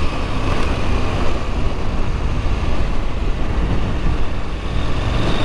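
Husqvarna Norden 901 adventure motorcycle ridden along a gravel road: steady wind noise on the microphone over the engine and the tyres on loose gravel.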